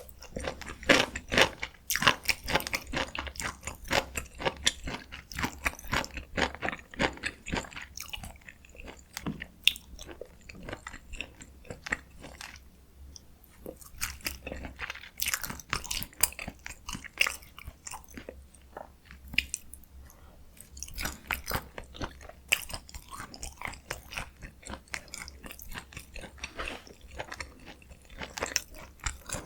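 Close-miked chewing and biting of spicy stir-fried chicken (dakgalbi): a dense run of crunchy, clicking mouth sounds, easing off briefly twice.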